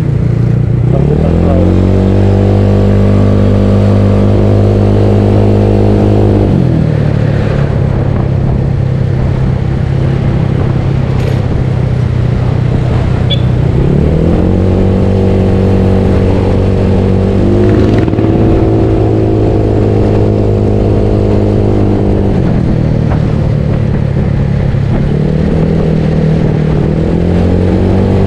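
Yamaha Mio Soul scooter with a bored-up single-cylinder engine and CVT, being ridden, with wind rumbling on the microphone. The engine note climbs quickly and then holds steady as the throttle is opened, drops back when it closes, and does this three times.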